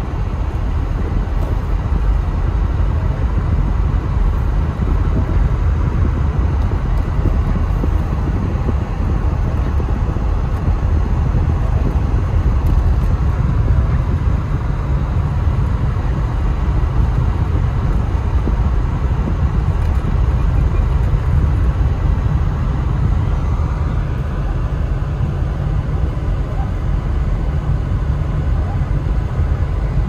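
Steady low rumble of a car driving on a snow-packed road, heard from inside the cabin: engine and tyre noise.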